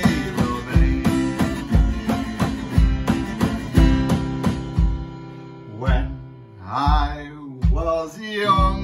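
Acoustic guitar strummed with an electronic drum kit beating time in waltz (3/4) time, a low kick-drum thump about every second. The drumming thins out about five seconds in.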